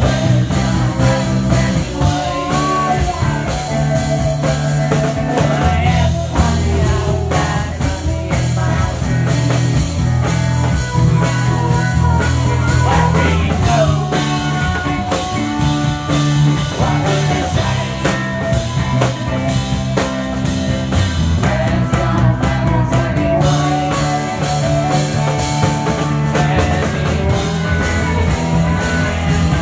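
Live rock and roll band playing: electric guitar over upright double bass, with drums.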